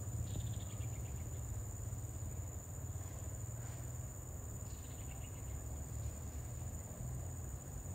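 Insects chirping: a steady high buzz, with short pulsed trills about half a second in and again near five seconds, over a low steady rumble.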